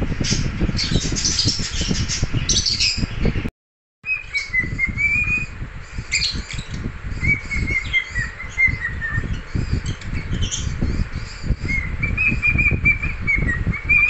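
Cockatiel whistling and chirping: quick high chirps at first, then, after the sound drops out briefly about three and a half seconds in, a run of whistled notes that dip and rise. The whistling pauses for a few seconds and resumes with a rising phrase near the end, over a low crackling noise.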